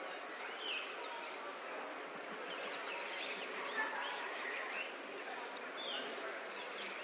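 Natural outdoor ambience: many small birds chirping in short, overlapping calls over a steady insect buzz.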